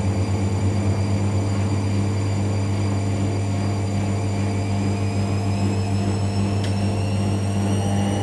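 Bauknecht WA 9350 washing machine running with a steady low hum, its motor whine starting to rise in pitch about halfway through as the drum speeds up.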